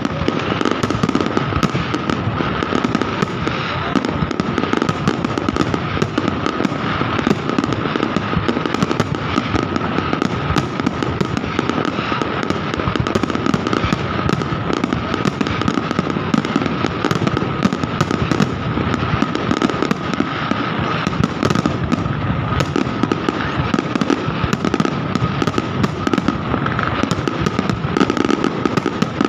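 Fireworks display in a dense, unbroken barrage of rapid bangs and crackling pops, with a steady high tone running underneath.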